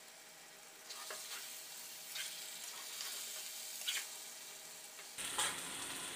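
Thick masala curry of stuffed bitter gourds sizzling in oil in a pan, cooked down to the point of being done. A steel spatula stirs and scrapes against the pan every second or so. The sizzle comes in about a second in.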